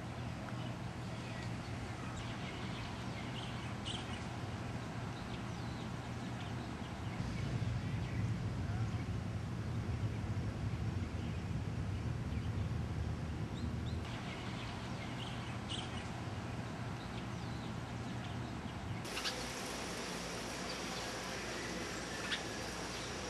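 Outdoor ambience: a steady low rumble with scattered faint bird chirps. The background changes abruptly partway through and again near the end, turning to a brighter hiss.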